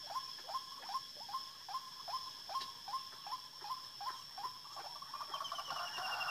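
White-breasted waterhen calling a steady run of short notes, about two and a half a second, each dropping in pitch. In the last second or so the notes merge into a louder, denser calling. A steady high-pitched whine runs underneath.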